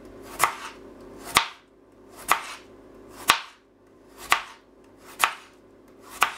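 Chef's knife slicing a peeled raw potato into thin rounds on a plastic cutting board, the blade knocking sharply on the board at the end of each cut, about once a second, seven times.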